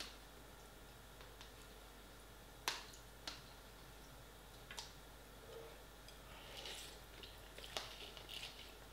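A metal spoon clicking against a paper pot noodle cup a few times as noodles are scooped out, with faint eating sounds in between.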